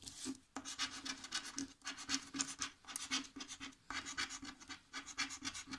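Scratch-off lottery ticket being scratched with a round scraper: quick, repeated rasping strokes across the card's coating, about five a second, with a couple of brief pauses.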